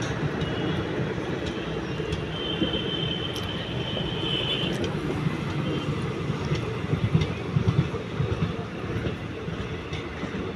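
A train running on the rails: a steady rumble with scattered clicks and knocks, a thin high squeal lasting a few seconds near the start, and a cluster of louder knocks after about seven seconds.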